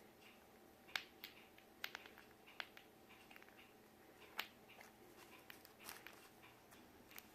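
Near silence with a few faint, scattered clicks and taps: a cat batting at a toy with balls and feathers.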